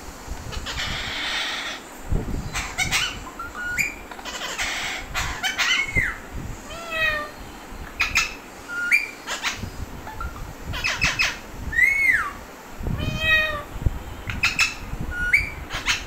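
Alexandrine parakeets calling: a long string of short, sharp squawks and screeches, many of them quick arched or upward-hooked glides in pitch, with two harsher, noisier screeches in the first few seconds.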